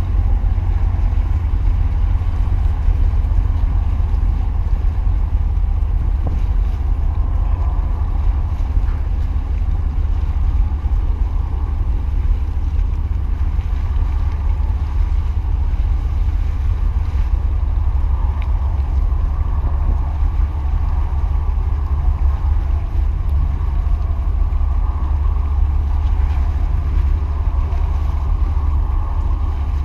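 Steady wind rumble on the microphone over the wash of the sea at a breakwater, with the low, distant running of a large container ship heading out.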